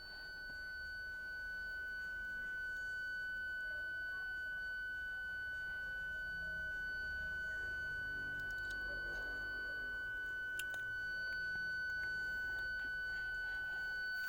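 Toyota parking sensor warning sounding one continuous, unbroken high beep tone. This is the solid tone the system gives when an obstacle is at the closest range.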